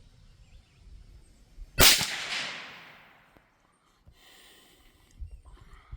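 A single shot from a Marlin 782 bolt-action .22 Magnum rifle: one sharp crack about two seconds in, with an echo that fades over more than a second.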